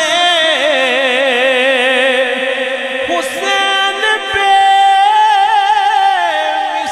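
Male voice singing an Urdu manqabat, drawing out long wavering melismatic notes that slide between pitches, with no words sung.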